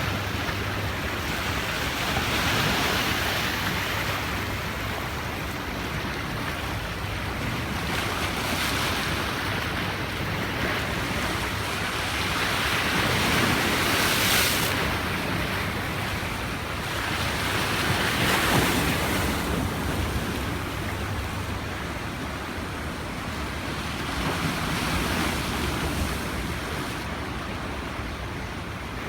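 Sea waves breaking and washing up the beach, a steady surf wash that swells with each wave about every four to six seconds, with a low wind rumble on the microphone.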